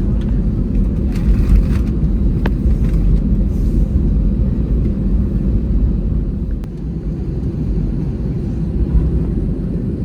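Steady low rumble of cabin noise inside an Airbus A320 airliner, with a couple of faint clicks.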